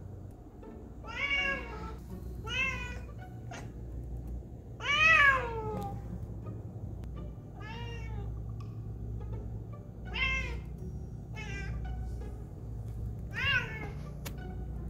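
Bengal cat meowing at a squirrel it is watching through a window: about seven short meows that rise and fall in pitch. The loudest and longest comes about five seconds in and slides down at the end.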